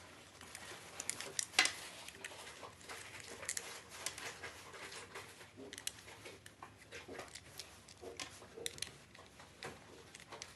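Faint, irregular clicks and light scrapes of a T-handle spanner turning and backing out the four screws on the underside of a CNC vacuum pod.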